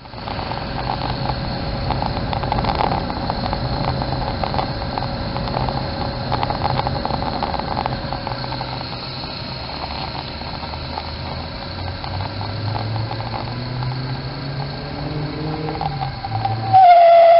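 Toyotomi laser-burner kerosene heater burning with a rough, fluttering combustion rumble and a low wavering hum that slowly rises in pitch. Near the end a loud, steady whistle-like tone sets in abruptly: the burner's resonance howl, which comes when it is short of air.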